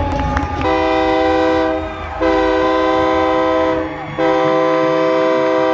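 Stadium horn sounding three long blasts, each a chord of several steady tones like a train horn, the third held longest.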